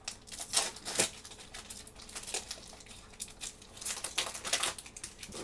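A booster pack's foil wrapper crinkling as it is handled and opened: irregular sharp crackles, loudest about half a second and a second in, with another cluster around four seconds.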